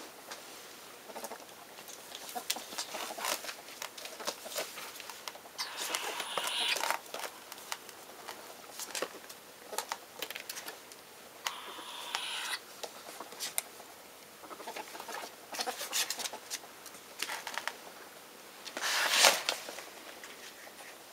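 Pet ferrets scrambling over spiral notebooks, with quick pattering taps and clicks of claws on paper covers and spiral bindings. Several longer papery scrapes as the notebooks slide and shift, about six and twelve seconds in, and the loudest about nineteen seconds in.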